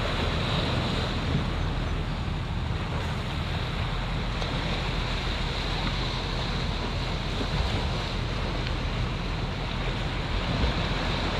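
Small waves breaking and washing steadily against rocky shore, with wind rumbling on the microphone.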